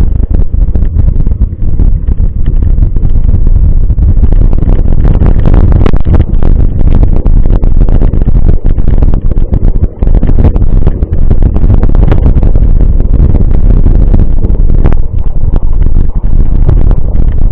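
Loud wind buffeting a camera microphone while mountain biking, a continuous low rumble, with frequent knocks and rattles from the bike over rough trail.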